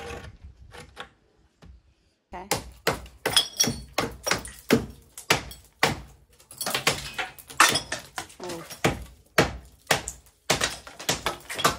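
Hand hammering on roof timber and masonry: a few faint knocks, then from about two seconds in an irregular run of loud, sharp blows, two or three a second, some with a brief clinking ring.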